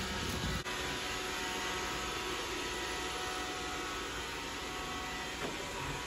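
Roomba robot vacuum running: a steady whir with a thin, even motor whine over it. A brief dip about half a second in, and a light click a little after five seconds.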